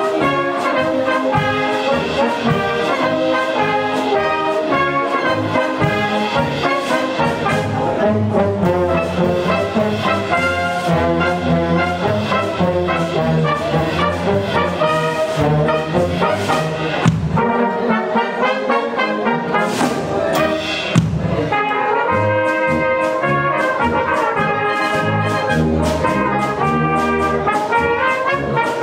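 Bohemian-style brass band playing a polka, with trumpets, trombones and low brass, and two sharp accents in the second half.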